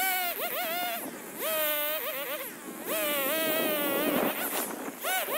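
Two-stroke chainsaw revving up sharply in repeated bursts of about a second, the pitch holding and then wavering before the engine drops back toward idle between bursts, as it bucks a log into rounds; three long bursts and a short one starting near the end.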